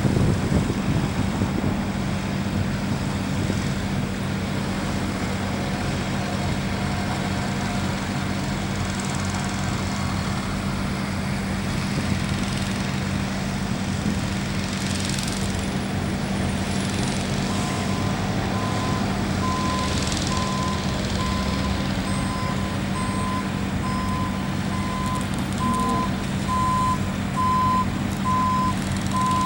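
Heavy diesel truck engine running steadily at a concrete pour, with a truck's reversing beeper starting a little over halfway through and beeping about once a second.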